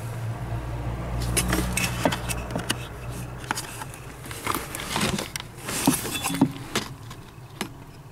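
Irregular metallic clicks and clinks of a hand tool and bolt against the steel bracket of a car's heater blower housing as a bolt is worked into a hard-to-reach spot. There is a low rumble of hand handling in the first few seconds.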